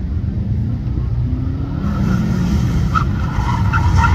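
Subaru Impreza WRX's turbocharged flat-four engine running hard on an autocross cone course, growing louder as the car approaches, with short tyre squeals as it turns through the cones in the second half.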